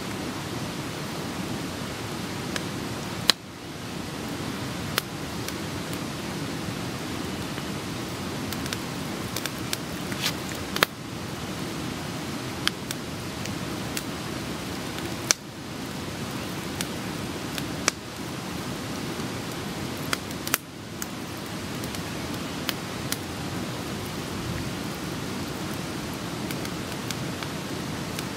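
Steady rush of a nearby waterfall, with scattered sharp clicks and pops over it.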